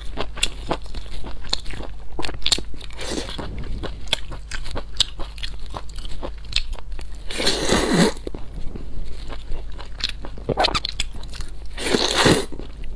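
Close-up mouth sounds of a person eating noodle soup: many short wet chewing clicks, with two louder slurps of noodles, one a little past halfway through and one near the end.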